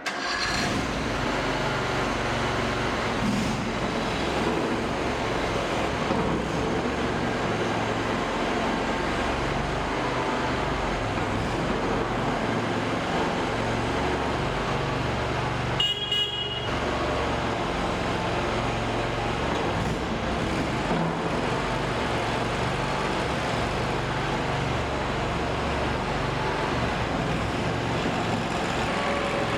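Mini skid steer's 739 cc twin-cylinder gasoline engine running steadily, with a brief dip about halfway through.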